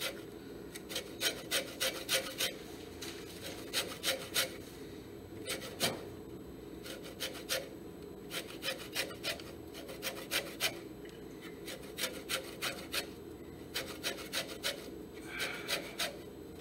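Orange peel being grated on a handheld stainless-steel rasp grater to take off zest: quick scraping strokes, about two or three a second, in runs with short pauses between.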